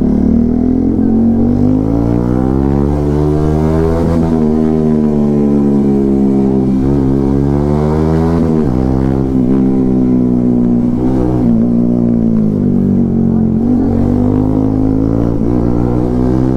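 Bajaj Pulsar NS200's single-cylinder engine running under way. Its pitch rises and falls several times, with a sharp drop about eight and a half seconds in.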